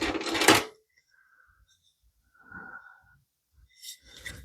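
Tools and loose metal bits clattering and scraping as they are rummaged and handled in a metal toolbox, loudly for under a second, then only a few faint handling sounds.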